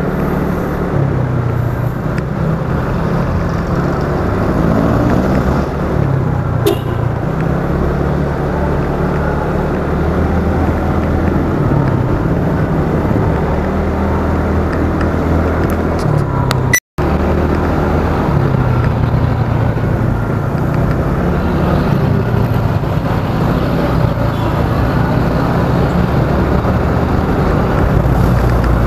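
Small motor scooter engine running while riding, with shifting pitch as speed changes, under steady wind and road noise. The sound cuts out for an instant a little past halfway.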